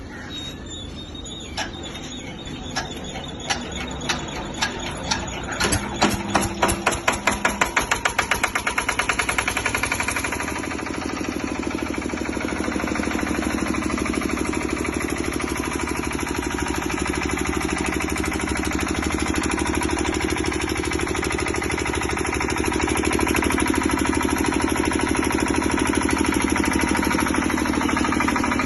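Diesel generator set's engine starting up: separate knocks that come faster and louder over the first several seconds as it picks up speed, then steady running that gets a little louder about three-quarters of the way through.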